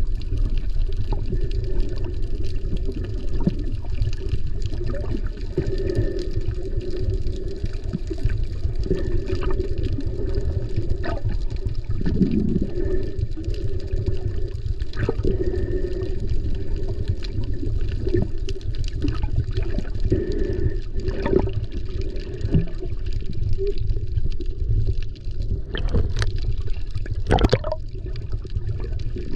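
Muffled underwater water noise picked up through a GoPro's waterproof housing while snorkeling: a steady low rumble of moving water with scattered small clicks and pops. Near the end there are two sharper splashy sounds as a stream of bubbles swirls past the camera.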